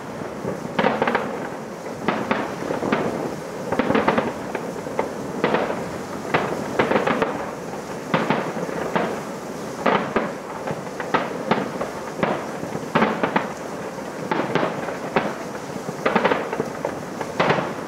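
Fireworks display: aerial shells bursting one after another at an uneven pace, one or two bangs a second, over a constant noisy crackle.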